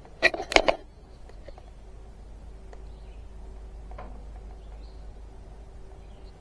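Quiet background: a low steady hum with a faint steady tone and a few faint high chirps, after a short cluster of sharp clicks or handling noises in the first second.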